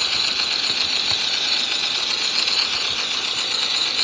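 Simulated P90 submachine-gun fire from a phone sound-effect app, played through the phone's small speaker: automatic fire so rapid the shots run together into one continuous rattle.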